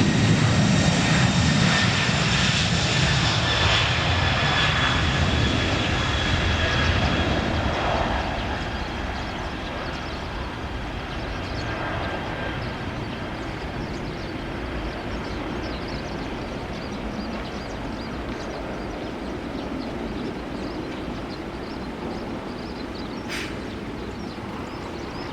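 Jet airliner's engines with a high whine over a rumble, loud at first and fading over the first eight seconds, then a steady, quieter engine noise.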